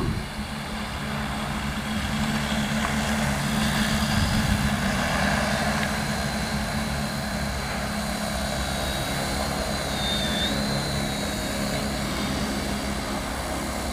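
Large multirotor crop-spraying drone with 75 cm (30-inch) propellers flying low, its rotors giving a steady hum with several low tones.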